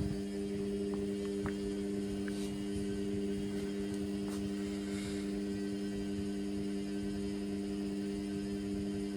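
Indesit washing machine humming steadily, with a few faint ticks, while the drum is overloaded with suds on a synthetics cycle.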